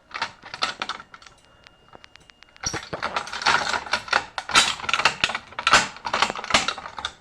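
Rapid, irregular mechanical clicking and clattering: a short burst at first, then a denser, louder run from about two and a half seconds in.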